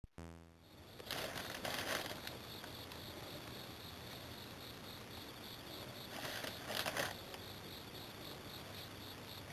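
Crickets chirping steadily in the background, a fast, even pulsing trill. Two short rustling noises stand out over it, about a second in and again about six seconds in.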